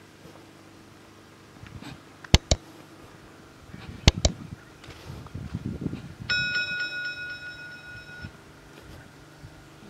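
Subscribe-button sound effect: two pairs of sharp mouse clicks, then a bell-like notification ding held for about two seconds. Underneath, the generator that powers the borehole pump runs with a steady low hum, and footsteps rustle in the middle.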